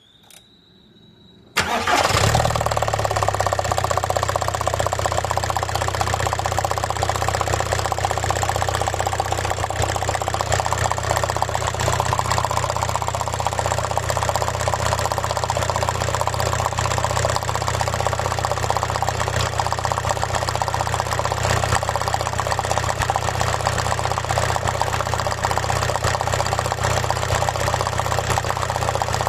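A car engine starts about a second and a half in, then idles steadily. The car is one being checked for a cylinder 1 misfire and rough idle.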